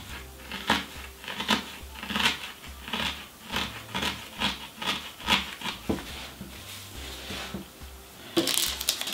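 A barbed felting needle stabbing into wool felt over a foam pad: a run of short, sharp pokes about one every three-quarters of a second, thinning out, then a louder flurry of handling and rubbing near the end.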